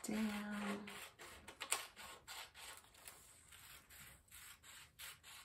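Scissors cutting paper in a steady run of short snips, about three a second, with one sharper snip about a second and a half in.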